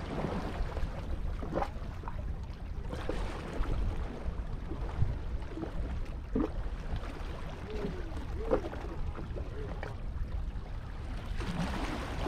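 Steady low wind rumble on the microphone with water lapping against the rocks, and a few faint, brief pitched sounds on top.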